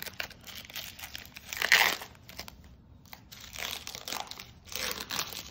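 Foil trading-card pack wrapper crinkling and rustling in the hands as it is pulled apart, in irregular bursts, the loudest a little under two seconds in.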